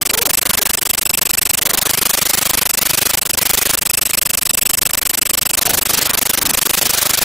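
The Noo-Noo's vacuum sound effect as it sucks up spilled custard: a steady, rough sucking noise with a fast flutter, and faint high whistling tones twice.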